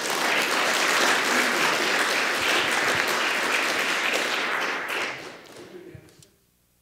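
Audience applauding, a steady clatter of many hands that dies away about five to six seconds in.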